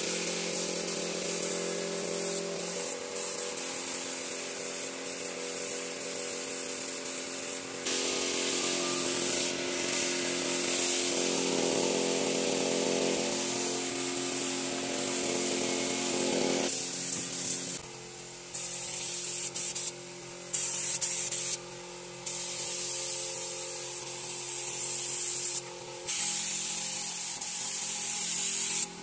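Compressed-air spray gun hissing steadily as finish is sprayed onto a teak sofa, over a steady hum. Past the middle the hiss stops and starts again several times as the trigger is released and pulled.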